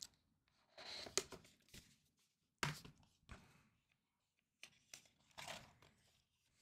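Quiet handling of a cardboard presentation box and its printed card inserts: brief rustles of paper and card with a few light taps and clicks, the loudest tap a bit under three seconds in.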